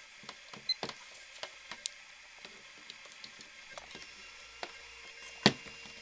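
Small clicks and knocks as a power plug and plug-in watt meter are handled and plugged in, then a low steady hum begins about four seconds in as the mini-fridge's compressor starts up. A sharper click comes near the end.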